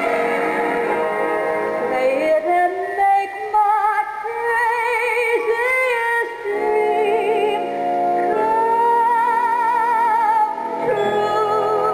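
Music from a 1946 Emerson bakelite tube radio: a singer holds long notes with a wide vibrato over instrumental backing.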